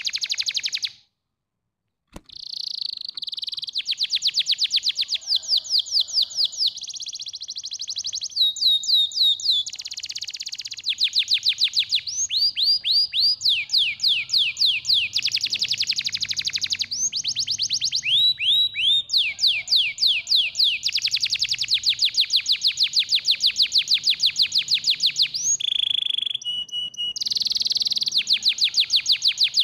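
Canary singing a long song of rapid trills: runs of fast repeated notes, some sliding down in pitch, broken only by a short silence about a second in.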